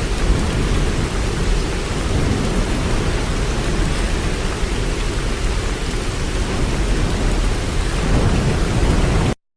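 Waterfall: a steady, loud rush of falling water, heavy in the low rumble. It cuts out abruptly to silence just before the end.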